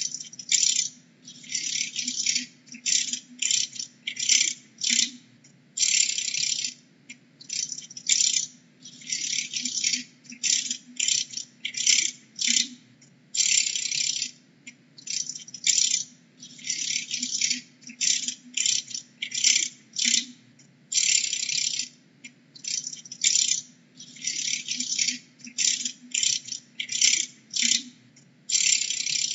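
Dragonfly wings rattling in irregular dry bursts, each from a fraction of a second to about a second long, with short gaps between them, over a faint steady low hum.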